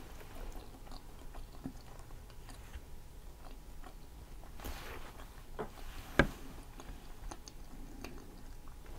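Quiet chewing of a mouthful of Philly cheesesteak sandwich, with small wet mouth clicks and one sharper click about six seconds in.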